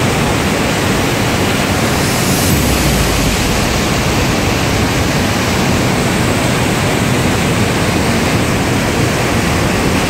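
Large waterfall on the Awash River, falling water rushing steadily and loudly.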